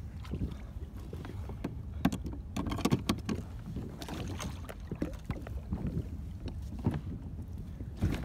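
Wind rumbling on the microphone over water slapping against a kayak, with irregular knocks and splashes that are busiest in the middle.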